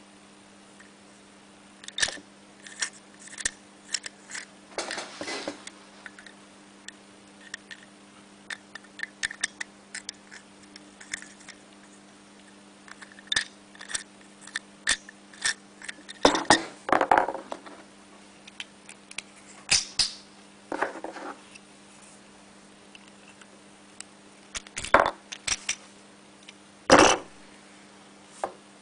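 Plastic clicks and short scraping rattles as a bent wire is worked inside a plastic clothing security tag to release its pin. The clicks are scattered, with a longer rattle about 16 seconds in and a sharper knock near the end.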